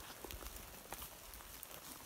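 Faint, irregular crackling and rustling of footsteps moving through dry undergrowth and leaf litter, with scattered twig snaps.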